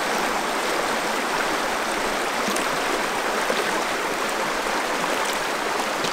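Shallow river riffle: water running steadily over rocks.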